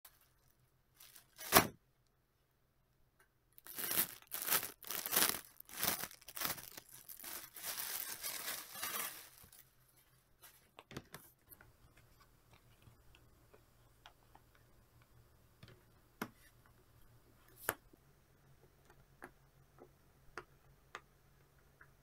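A sharp click, then several seconds of plastic packaging crinkling and tearing. After that come scattered single soft clicks as a silicone pop-it fidget toy is handled and its bubbles pressed.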